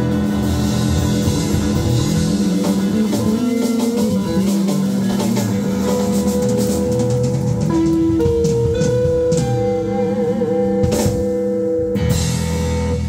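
Live rock band playing an instrumental passage: electric guitar holding long sustained notes with bends and vibrato over electric bass and drums.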